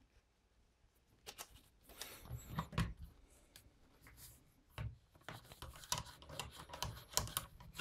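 A cleaning rod pushing an oiled patch through a Taurus revolver's barrel, with scraping and rubbing and sharp metallic clicks as the gun is handled, starting about a second in.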